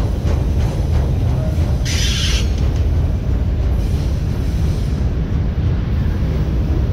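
Freight train of autorack cars rolling past with a steady low rumble of wheels on rail, with a brief hiss about two seconds in.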